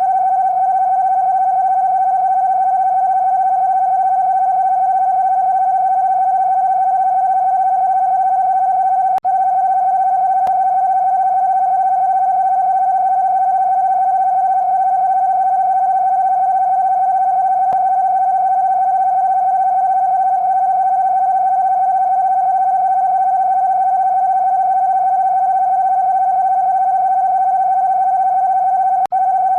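Emergency Alert System alarm: one steady electronic tone held at a constant pitch, broken only by a brief dropout about nine seconds in and another near the end.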